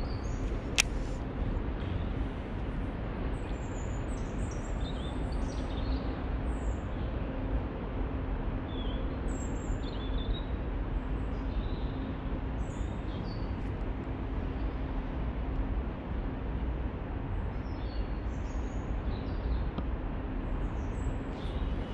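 Small birds chirping now and then over a steady low rumble with a faint hum. A single sharp click about a second in.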